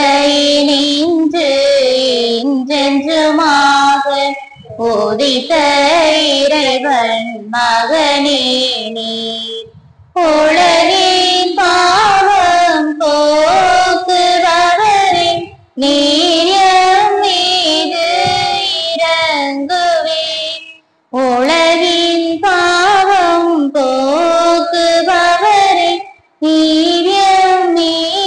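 A high voice singing a Tamil church hymn in phrases a few seconds long, with short breaths or breaks between them.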